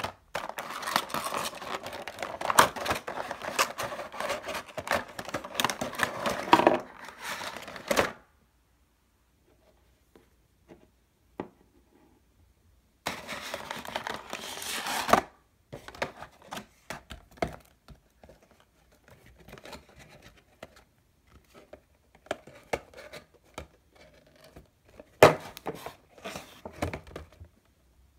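Clear plastic packaging insert and cardboard box crinkling and rustling as they are handled, in a dense crackle that stops abruptly about eight seconds in. A second short burst of crinkling follows a few seconds later, then light scattered taps and clicks of handling, with one sharper knock near the end.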